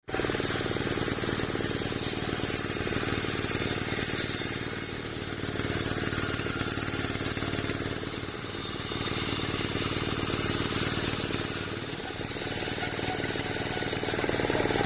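Homemade circular saw rig running steadily, its drive motor and blade making a continuous machine sound that dips slightly in loudness every three to four seconds.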